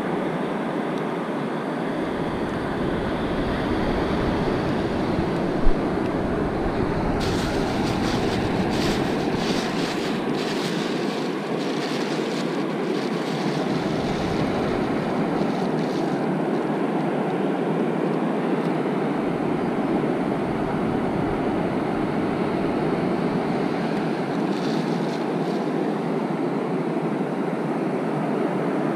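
Surf breaking steadily on the beach, with gusts of wind rumbling on the microphone that come and go.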